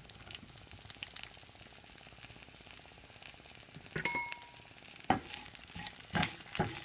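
Whole spices and slit green chilies sizzling gently in hot oil in a stainless steel pan, frying for a tadka. A short ringing tone sounds about four seconds in. From about five seconds in, a wooden spatula scrapes and knocks against the pan as the mix is stirred.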